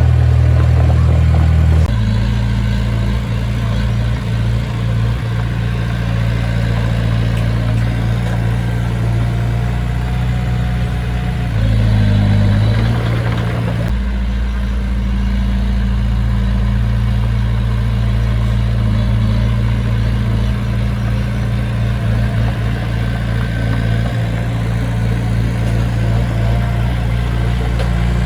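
Heavy construction machine's diesel engine running steadily, with its note changing abruptly a few times.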